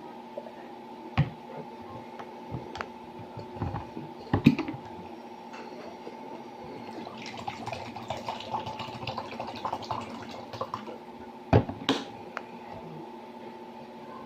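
Eating sounds close to the microphone: a few sharp clinks of cutlery on a plate, the loudest about four seconds in and two more near the end, with wet mouth sounds in the middle, over a steady hum.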